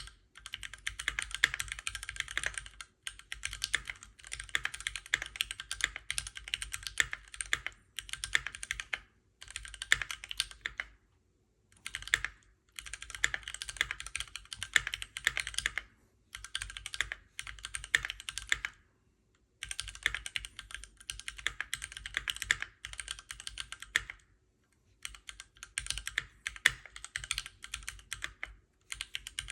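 Fast typing on a Keychron Q1 all-metal mechanical keyboard: quick runs of key clacks lasting a few seconds each, broken by brief pauses.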